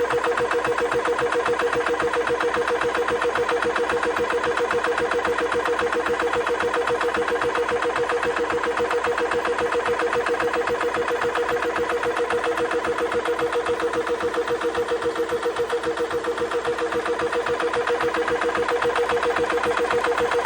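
AEA Precision Airguns PCP high-pressure air compressor running, its piston pumping in a fast, even pulse under a steady hum. It is partway through filling an air rifle, with the pressure climbing past 30 bar, and its cooling fans are not yet on, so it is not too noisy.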